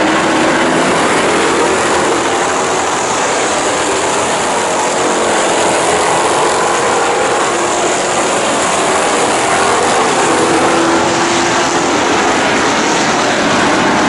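A pack of Thunder Stock race cars running hard on a dirt oval, with their engines blending into one loud, steady roar. Engine notes rise and fall as cars pass.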